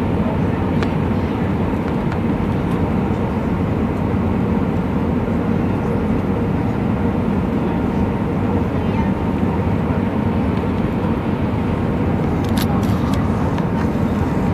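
Steady rumble of an Airbus A319 heard from inside the passenger cabin: jet engines and rushing air, mostly low, with a faint steady hum running through it and a few light clicks near the end.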